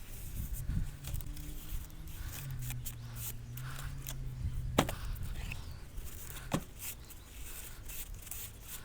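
Light scraping and handling noises from cleaning stray refractory cement off a propane forge, with two sharp clicks, one about five seconds in and one about six and a half seconds in, over a faint steady low hum.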